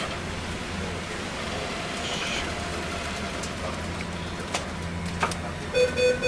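Steady low engine hum and rushing noise, as aboard a vessel underway in rough water, with a few sharp knocks late on. Just before the end a pulsing, beeping tone starts.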